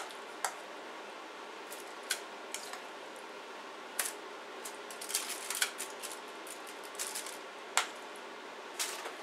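Chopsticks clicking and tapping against a stainless steel mixing bowl while marinated chicken pieces are picked out of it. Scattered sharp clicks, with a quick run of them about five seconds in and a louder one near the end, over a faint steady room hum.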